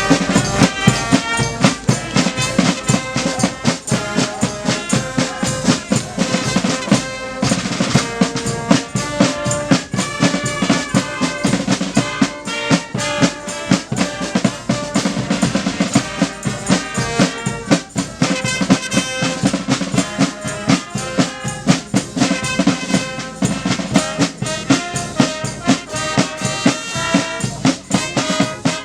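Music driven by busy drums, with snare, bass drum and rolls, under a melody of short stepping notes.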